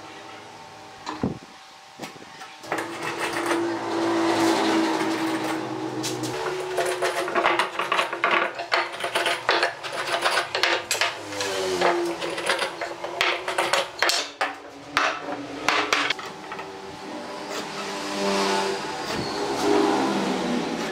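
Pine boards and hand tools (steel square, marking gauge, pencil) knocked, tapped and set down on a wooden workbench, with a dense run of sharp clicks and knocks in the middle. Under them runs a steady pitched hum whose pitch shifts every few seconds.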